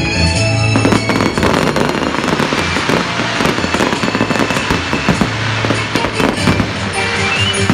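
Fireworks display: a dense, irregular run of bangs and crackles from bursting shells. Music is heard in the first second and comes back near the end.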